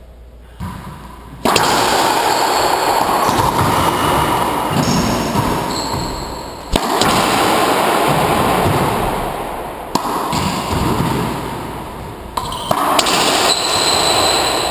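Racquetball play in an enclosed court: several sharp cracks of the ball striking racquets and walls, starting about a second and a half in and spaced a few seconds apart, with a cluster near the end. A loud steady rushing noise runs beneath them, with brief high squeaks of court shoes.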